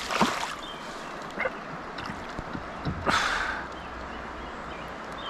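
Steady rush of river water, with a brief splash about three seconds in.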